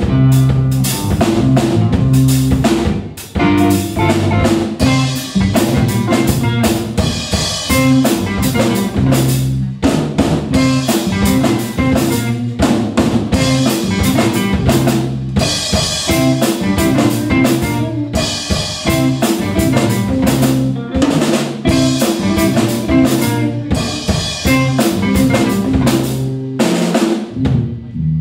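Live rock band playing an instrumental passage: a drum kit with bass drum and snare hits to the fore, over electric guitars and electric bass.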